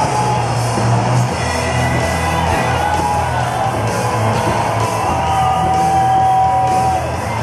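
Music with a singer holding long, wavering notes over a steady bass line.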